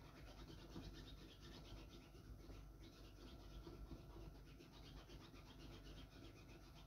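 Near silence: room tone with a faint, fast scratchy rustle.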